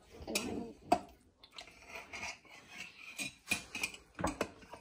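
A metal butter knife clinking and scraping inside a glass jar of jelly as it is scooped out: a string of short clinks and scrapes, the sharpest about a second in and another few near the end.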